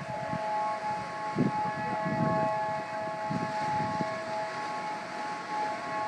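Tsunami warning sirens sounding, a steady wail held at several pitches at once.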